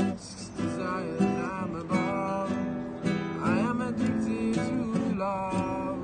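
Acoustic guitar strummed in chords, with a stroke about every half second.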